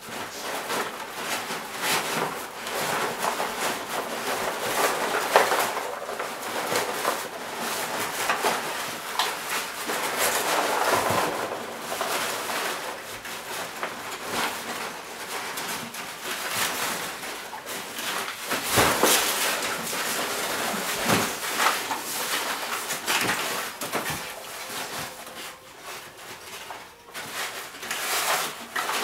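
A dog rummaging in a gift box, rustling, crinkling and tearing crumpled brown packing paper in an irregular, continuous stream of crackles.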